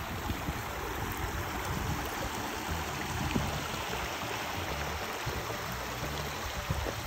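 Shallow mountain creek running over rocks and gravel with a steady rushing sound.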